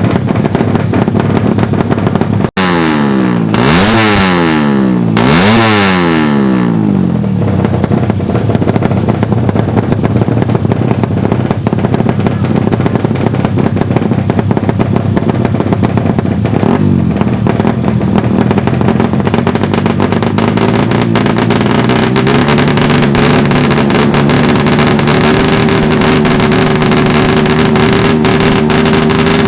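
Suzuki Satria FU 150 drag-bike engines, four-stroke single-cylinders, revving hard with the pitch swinging down and up twice a few seconds in. A dense steady engine din follows, and a steady held engine note joins it about three-quarters of the way through.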